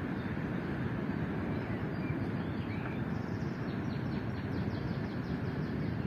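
Steady low outdoor rumble, with a quick run of short, high, falling chirps in the middle.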